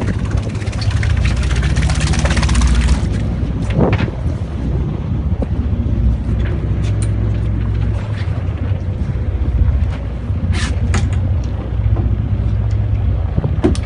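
Steady low rumble of the fishing boat's engine mixed with wind on the microphone. A rush of water splashing fills the first few seconds as a hooked barracuda thrashes beside the hull, and a few sharp knocks follow later.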